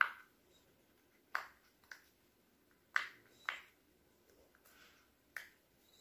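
Silicone pop-it fidget toy bubbles being pushed through by a finger, about six short, sharp pops spaced unevenly.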